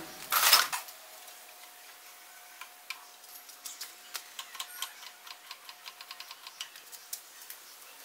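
Faint, irregular light ticking, a few soft clicks a second that come more often from a few seconds in, over a faint steady hum. A short burst of noise about half a second in.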